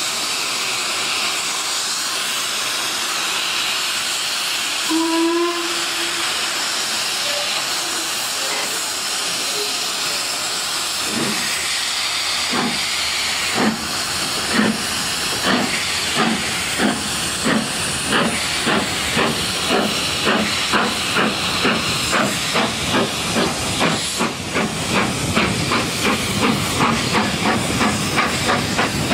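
LMS Black Five steam locomotive hissing steam while standing, with a brief whistle about five seconds in, then starting away: exhaust beats begin about eleven seconds in, slow at first and quickening steadily over the continuing hiss.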